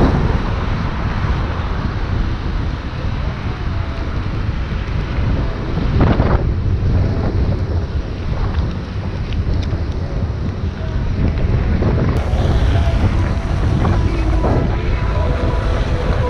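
Heavy wind noise on the microphone, a steady low rumble with a stronger gust about six seconds in.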